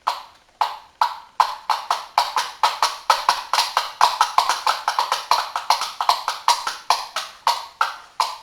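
Two small caps knocked together in a clip-clop rhythm imitating a horse's hooves: slow single knocks at first, quickening to about four or five knocks a second through the middle, then slowing again near the end.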